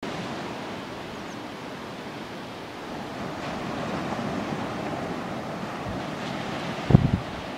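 Steady rushing noise that swells slightly in the middle, with a loud low thump of wind buffeting the microphone about seven seconds in.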